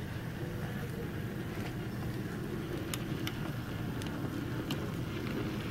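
Sn3 model steam locomotive running on the layout: a steady mechanical hum, with a few sharp clicks, likely its wheels over rail joints.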